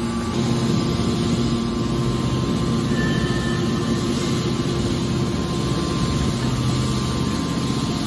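Hydraulic scrap metal baler running, a steady low hum from its hydraulic pump and motor as the press lid swings.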